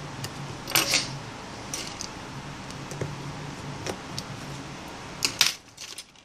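Small, sharp plastic clicks and scrapes as the upper inner panel of an LG Nexus 5 phone is pried off its clips with tweezers and a plastic pry tool, the loudest cluster about five seconds in. A low steady hum runs underneath and stops shortly before the end.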